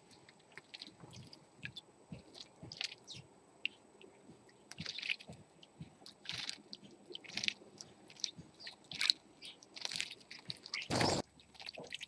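House sparrows bathing in a shallow pool: irregular small splashes and flicks of water. A louder, brief rush of noise comes about eleven seconds in.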